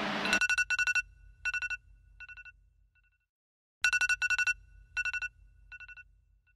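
iPhone alarm going off: clusters of rapid electronic beeps that grow fainter cluster by cluster, the whole pattern playing twice about three and a half seconds apart.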